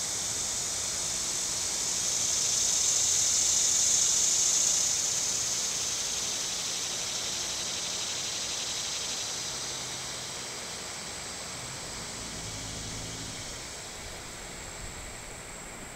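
Insects droning in a summer garden: a high, hissing buzz that swells over the first few seconds and then slowly fades.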